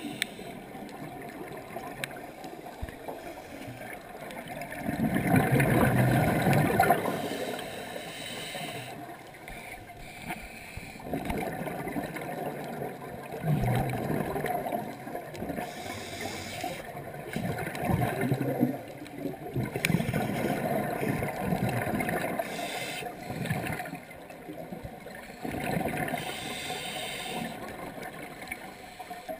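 Scuba diver breathing through a regulator underwater: a quiet hiss between breaths and a gurgling rush of exhaled bubbles every few seconds, the loudest about six seconds in.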